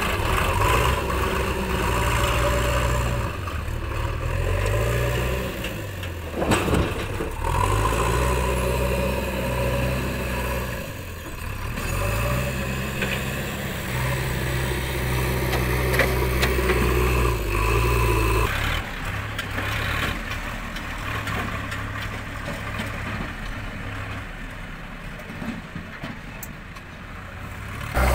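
Diesel engines of a JCB 3DX backhoe loader and a farm tractor running, the engine speed rising and falling several times as the machines work. About two-thirds of the way through, the engine sound becomes fainter and lower.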